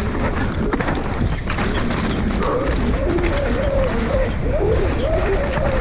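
Mountain bike ridden fast down a dirt forest trail, heard from a camera on the rider. Tyres rumble and the bike rattles and clicks over roots and dirt, with wind buffeting the microphone. A wavering pitched hum rides over the noise.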